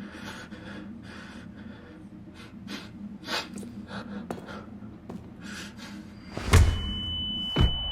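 Added sound effects: a run of short, noisy breath-like bursts over a low hum, then a heavy thud about six and a half seconds in and a second thud a second later, with a steady high ringing tone starting at the first thud.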